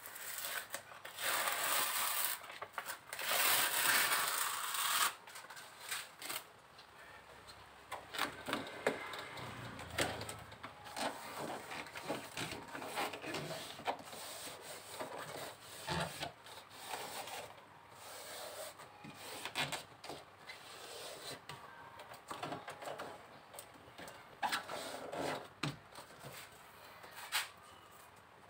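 Foil-faced heat insulation mat rubbed and crinkled as hands press and smooth it onto the underside of a car bonnet: irregular rustling and scraping with scattered small clicks, loudest in two long noisy stretches in the first few seconds.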